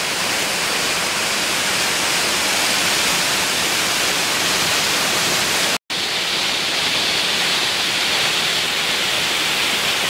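Waterfall pouring, a steady loud rush of falling water, with a split-second gap about six seconds in.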